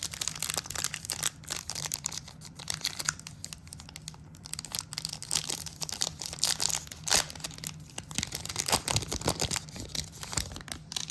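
A foil trading-card pack being torn open and crinkled by hand, a long run of irregular crackles and rips.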